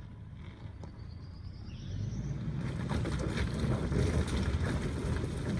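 A 2019 Ford Ranger's 2.3-litre EcoBoost engine pulls the truck up a loose-rock hill and grows louder from about two seconds in. Its tires crunch over the stones, with scattered small rock clicks.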